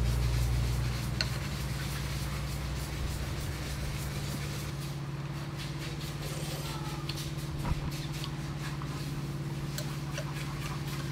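A steady low mechanical hum like an idling engine runs throughout, with a couple of light clicks of a metal spoon against a ceramic soup bowl.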